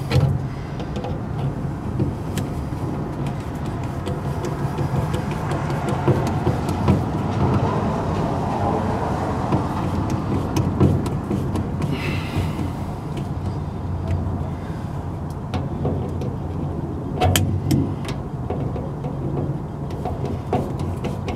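A steady low rumble throughout, with scattered light clicks, a short scrape about twelve seconds in and a few sharper clicks a little later, as a hand tool works the hose clamps on the rubber connector of a fuel-tank filler neck.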